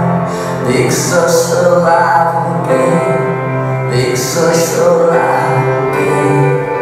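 A song playing: a singer holding long notes over instrumental accompaniment with a steady bass line.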